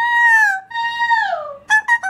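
High soprano-style sung notes in a vocal warm-up duet between an Amazon parrot and a woman. Two long notes are each held and then slide down in pitch, and a few short quick notes follow near the end.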